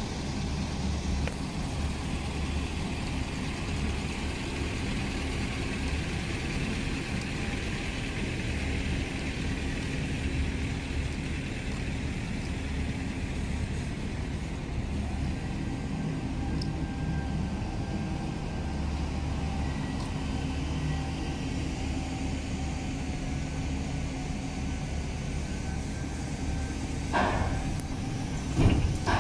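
Isuzu FTR refuse compactor truck's 205 HP diesel engine running steadily, with the compactor's hydraulic system giving a faint steady whine through the middle. A few sharp knocks come near the end.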